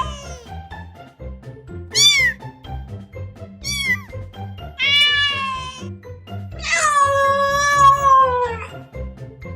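Domestic cat meowing repeatedly: two short meows, a fuller one, then a long drawn-out meow that drops in pitch at the end, over background music with a steady low beat.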